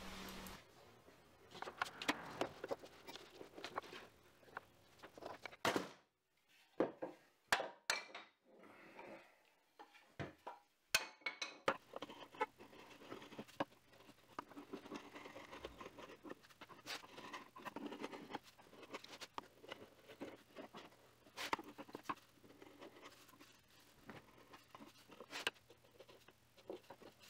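Scattered clicks and knocks around a clamped walnut-and-maple cutting board glue-up, then, about twelve seconds in, a steel chisel scraping and ticking across the face of the dried board, over a faint steady hum.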